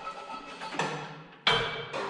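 A light knock, then a sharp metal-on-metal clank that rings on and dies away, from work on a round baler's steel rollers.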